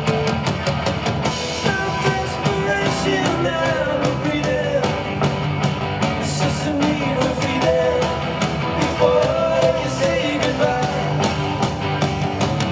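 Live band playing an instrumental passage with drums, a melody line sliding between notes over steady chords.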